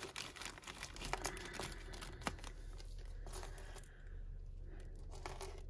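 Thin clear plastic bag crinkling as it is handled and shaken open to tip out a small bunch of earrings. This is followed by a quieter stretch with a few light clicks as the earrings are tipped onto the board and handled.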